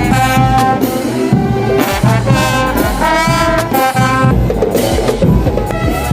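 Brass band playing, trumpets and trombones holding notes over drum strokes.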